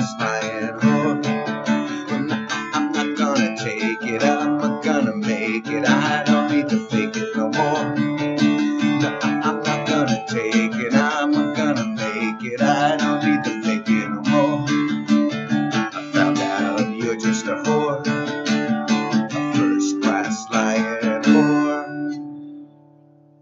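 Acoustic guitar strumming chords, ending about twenty-two seconds in on a last chord that rings and fades away.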